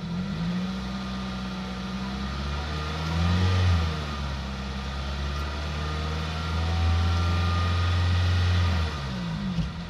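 Toyota Celica's 1.8 VVT-i four-cylinder engine running, not yet fully warm, with a lean fault (code P0171) that the owner suspects is a vacuum leak. The revs rise briefly about three and a half seconds in, then rise again and hold for a couple of seconds before falling back to idle near the end.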